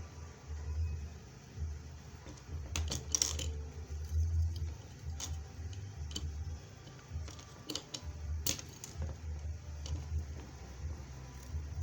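Scattered sharp clicks and taps from working a hand-operated bead rivet machine and its small metal beads, a few close together around three seconds in and again near eight and a half seconds, over a low rumble of handling noise.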